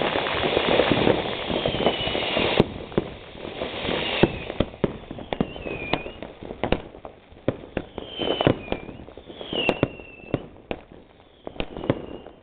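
A fountain firework hisses as it sprays sparks and cuts out after about four seconds. Then comes a run of sharp firecracker and firework bangs, with short whistles falling in pitch.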